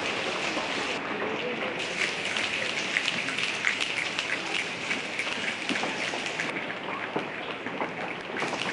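A large audience making a rainstorm with their hands: a dense, crackling patter of many claps, finger snaps and pats on the legs that sounds like rain.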